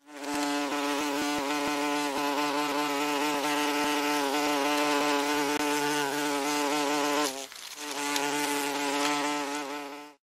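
A wasp buzzing with a steady, even hum. The hum drops away briefly about seven and a half seconds in, then comes back.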